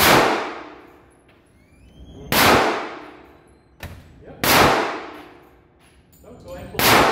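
Four gunshots about two seconds apart, each sharp crack followed by a long echoing decay.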